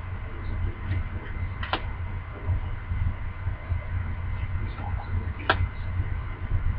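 A steady low hum with two sharp clicks from hockey trading cards being handled, one a little under two seconds in and one near the end.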